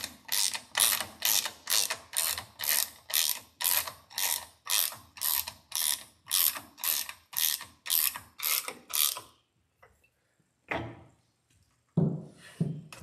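Ratchet wrench tightening a lower-unit mounting bolt on a 4 hp Mercury outboard, clicking in quick back-and-forth strokes about two a second until it stops about nine seconds in. A knock follows, then a few heavier knocks near the end.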